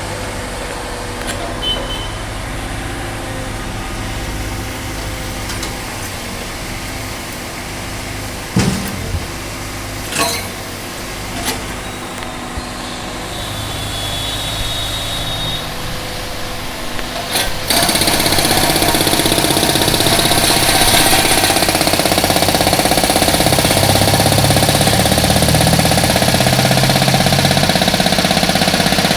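Engine of a road-breaking machine running steadily, with a few sharp knocks. About eighteen seconds in, the concrete breaker starts hammering into the road, suddenly much louder, and keeps going.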